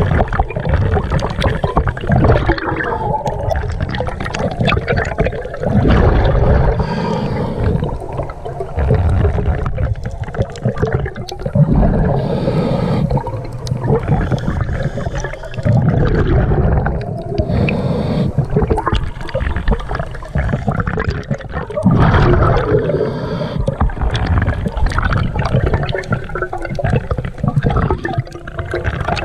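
Scuba diver breathing through a regulator underwater: exhaled bubbles gurgle and rush past in surges every few seconds, with the hiss of inhalation between them.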